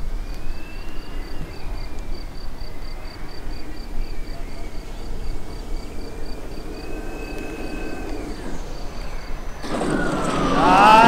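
Twin 120 mm Schubeler electric ducted fans of a large RC Airbus A350 model whine faintly, gliding in pitch on a low-throttle landing approach. About ten seconds in the whine becomes suddenly loud and close, sweeping up and down in pitch as the model rolls on the runway.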